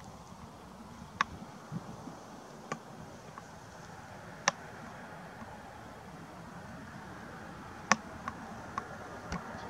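Faint steady outdoor background noise, broken by about seven short sharp clicks or ticks at uneven intervals, the loudest about a second in, near the middle and near the end.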